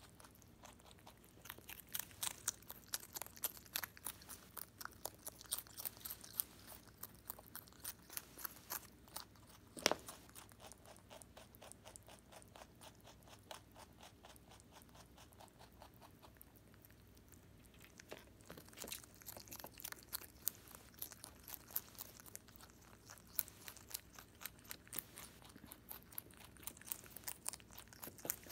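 Holland Lop rabbit chewing cabbage: fast, crisp crunching, fading for a few seconds in the middle, with one sharper snap about ten seconds in.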